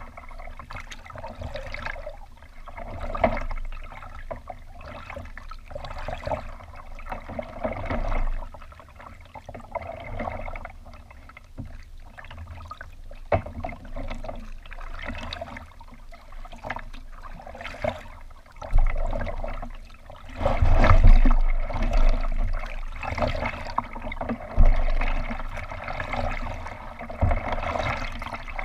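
Water lapping, trickling and splashing against a kayak's hull as it is paddled, swelling every few seconds, with a louder, rumbling stretch about two-thirds of the way through.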